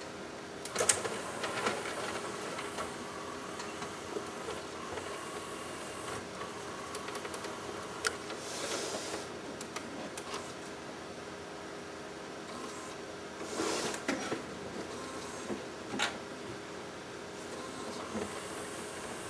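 Sony Laserdisc player's disc and loading mechanism running with its cover off, trying to spin up and play a disc: a steady motor whir with scattered mechanical clicks, and a few brief whooshing surges partway through.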